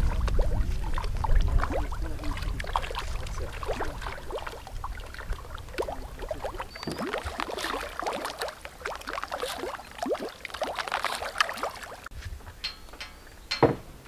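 Irregular splashing and slapping of water as tilapia break the surface of a farm pond, with a low rumble in the first few seconds.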